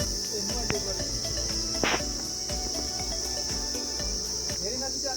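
A steady high-pitched drone of insects, with a short knock about two seconds in.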